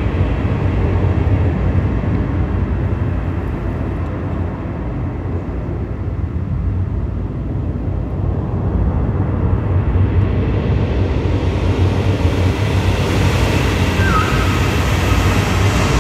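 Electronic synthesizer music: a dense, rumbling noise texture whose high end fades toward the middle and then opens back up from about ten seconds in, with a brief falling chirp about fourteen seconds in.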